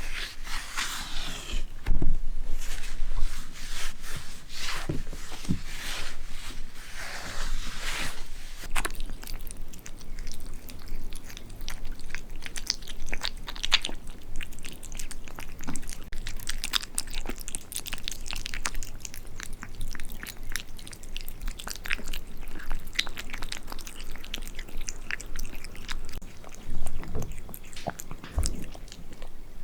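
Close-up mouth sounds of a cat, such as chewing, licking or nibbling: a quick, irregular run of small crunchy clicks throughout, a little louder about two seconds in and again near the end.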